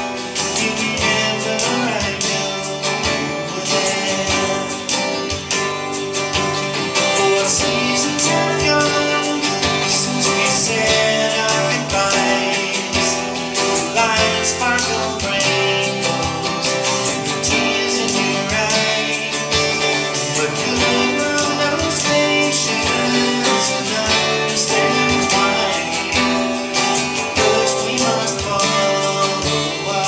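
Live song: a man singing to his own acoustic guitar strumming.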